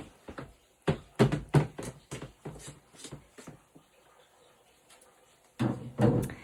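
A quick run of sharp knocks and clatters, about a dozen in two and a half seconds, then quiet, then a louder burst of handling noise near the end.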